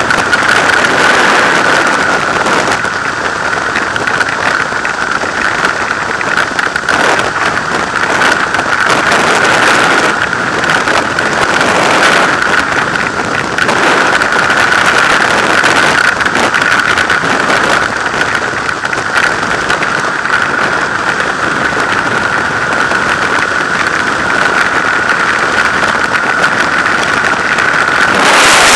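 Rushing freefall wind on a helmet-mounted camera during a skydive, loud and steady, with a steady whistling tone running through the noise.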